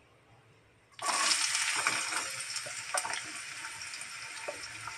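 Chopped onions tipped into hot oil with spluttered mustard seeds in a kadai: a loud sizzle starts suddenly about a second in and slowly eases, with scattered small crackles and pops.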